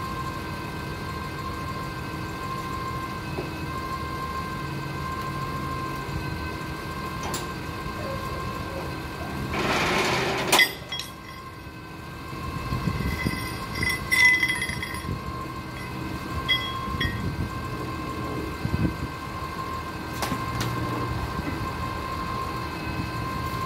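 An idling engine hums steadily, most likely the propane forklift beside the truck. About ten seconds in comes a brief loud rush as a nylon ratchet strap is flung over a load of metal studs, cutting off sharply, followed by scattered metallic clinks from the strap's hook and buckle against the load and truck.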